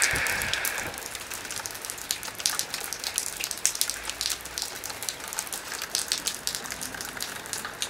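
Rain falling outdoors, with many irregular drops ticking. There is a brief hiss in the first second.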